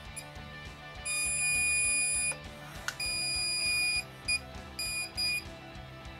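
Handheld electronic stud finder slid along a wall, beeping a high steady tone each time it passes over a stud. There is a long beep of just over a second, another of about a second, then three short beeps.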